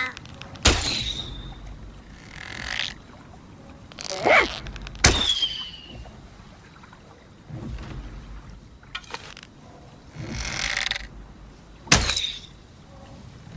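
Bow-and-arrow sound effects: three sharp thwacks, each trailing a short ringing twang that falls in pitch, with softer whooshing swishes between them.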